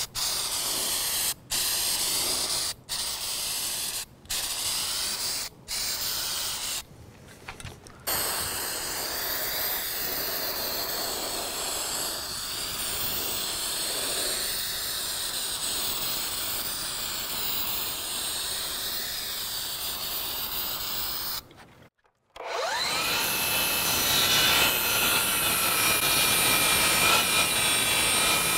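Aerosol can of pigmented shellac primer hissing as it sprays the board edges, first in several short bursts a second or so apart, then in one long continuous spray. After a brief break, a DeWALT cordless sliding miter saw spins up with a rising whine and runs through a stack of shiplap boards, louder than the spraying.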